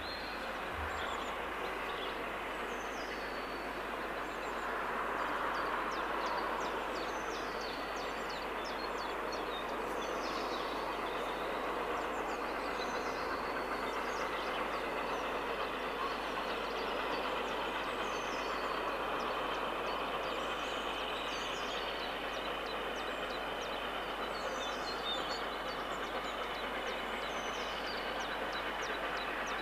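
A steam train running in the distance, still out of sight, heard as a steady, even noise. Small birds chirp and sing high over it throughout.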